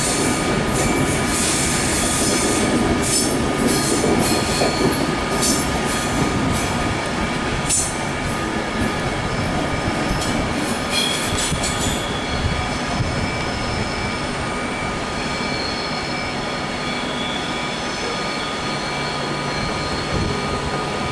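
Class 390 Pendolino electric trains running slowly over curved pointwork, wheels squealing on the curves. For about the first half there are rapid scraping squeals and clicks; after that the squeal settles into steadier high tones over a low rumble.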